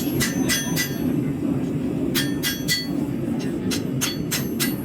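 Hand hammer striking hot 1075/1080 steel on an anvil, blows in quick runs of three or four, each with a bright metallic ring, hammering down a bend in the knife's handle. A steady low rumble runs beneath the blows.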